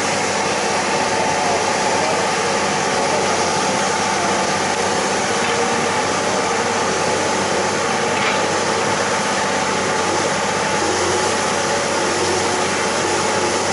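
Hydraulic excavator's diesel engine running steadily at an even speed.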